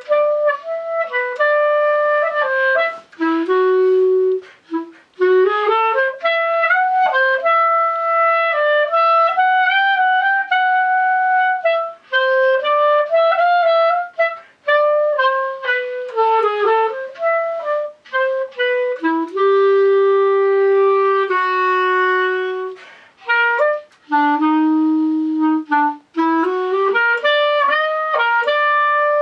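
A solo clarinet playing a melody with no accompaniment: quick runs of short notes, several longer held notes in the second half, and short breaks for breath.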